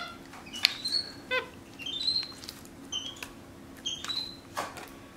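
Capuchin monkey giving a string of short, high-pitched peeps that glide upward, several spread across a few seconds, with a few sharp clicks between them.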